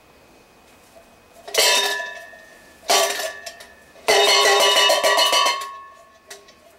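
Metal clanging struck by hand, with a ringing tone after each hit: single clangs about a second and a half in and again about three seconds in, then a fast run of clangs that lasts over a second. It is a sudden noise made to test a puppy's reaction to sound.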